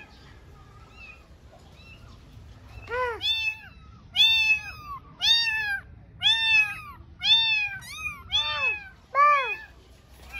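Kittens meowing: after about three quiet seconds, a run of high-pitched meows comes roughly once a second, about eight in all.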